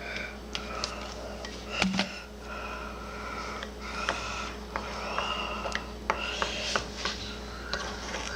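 Utensil stirring slime mixture with liquid starch being added in a bowl: scraping and rubbing with frequent small clicks against the bowl, and one louder knock about two seconds in.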